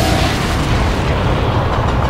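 Explosion sound effect: a long, continuous rumbling blast, heavy in the low end, with its hiss thinning out in the second half.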